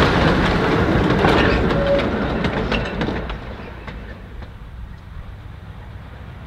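Two narrow-gauge freight wagons rolling past close by, their wheels clicking over the rail joints, with a brief squeal about two seconds in. The sound drops away sharply about three seconds in to a much quieter, even background.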